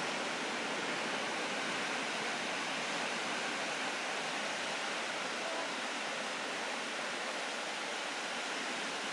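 Steady wash of ocean surf: an even rushing noise without breaks.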